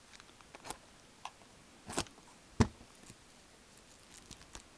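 A blade cutting away the sealing wrap on a cardboard trading-card box: scattered small clicks and crinkles, with a short scrape about two seconds in and one sharper click just after.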